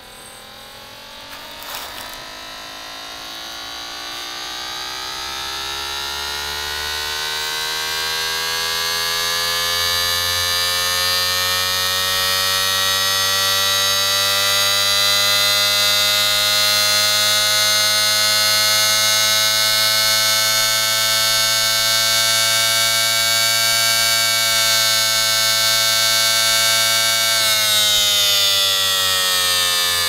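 Homemade six-port siren made from a VCR video head drum, spun by a hard disk drive motor: its wail rises in pitch and grows louder over the first half, holds steady at a high pitch, then begins to wind down near the end.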